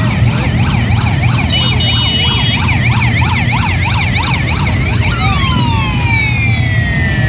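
A siren yelping rapidly, about four rises and falls a second, over the low rumble of a line of motorcycle engines riding slowly past; about five seconds in the siren winds down in falling glides.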